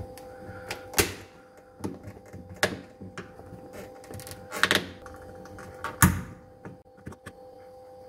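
A flat screwdriver prying a plastic refrigerator door switch out of its housing: an irregular series of clicks, scrapes and knocks of metal tip on plastic, the loudest about six seconds in. A steady hum runs underneath.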